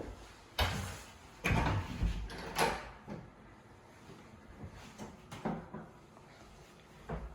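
A run of knocks and thumps from doors being opened and shut, several close together in the first three seconds, then two fainter ones further on.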